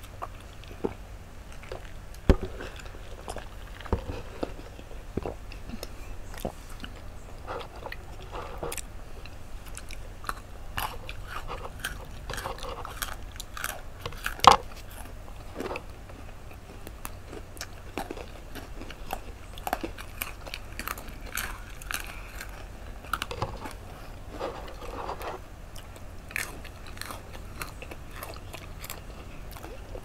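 Close-up eating sounds: crunching and chewing of Pepero almond chocolate sticks and Oreo cookies, with many sharp bite snaps, the loudest about halfway through.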